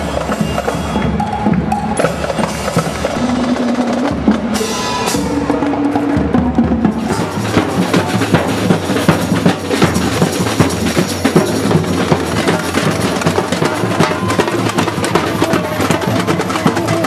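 Music with drums: for about the first seven seconds a melody over a bass line, then it changes to dense, fast drumming that runs on.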